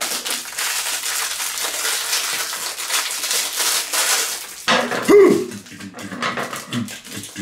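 Packaging crinkling and rustling for about four and a half seconds, then a short yelp-like cry that rises and falls in pitch.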